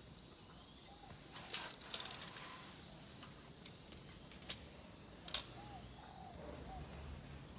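Light clicks and taps of a steel tape measure and marker pen worked against a wall, a cluster of them about two seconds in and single ones later. A dove coos softly a few times in the background.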